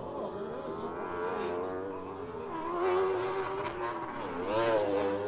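Several side-by-side (UTV) race engines running hard round a dirt track, their pitches rising and falling as the drivers work the throttles. The engines are loudest about three seconds in and again near the end.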